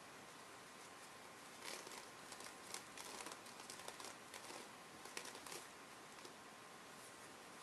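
Faint rustling and light clicks of a folded-paper origami slinky flipping over from hand to hand, busiest from about two seconds in until about five and a half seconds.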